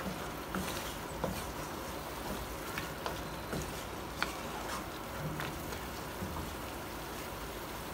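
Mutton and spices sizzling in a hot pan as they are stirred with a wooden spatula, a steady hiss with scattered light clicks and crackles. The meat is being dry-roasted with its spices, before any oil goes in.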